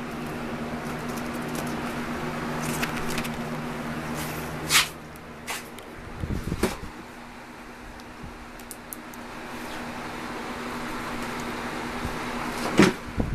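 Steady low hum of a machine in the room, with a few short knocks and rustles; the lower hum drops away about six seconds in.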